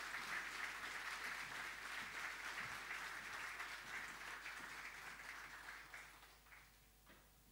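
Audience applauding, steady at first and then dying away near the end.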